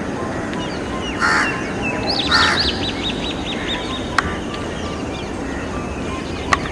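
Birds calling: two short harsh calls about a second apart, then a quick run of high, falling whistled notes. Two sharp clicks come later.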